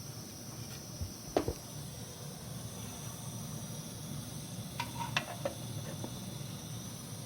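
MSR WhisperLite International liquid-fuel stove burning with a steady low rush and hiss under a mess tin of steaming taro. A few light clinks come about a second in and again around five seconds in.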